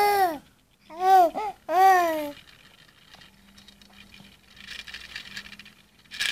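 Baby babbling and cooing: a drawn-out coo ending just after the start, then three short coos that rise and fall in pitch within the next two seconds.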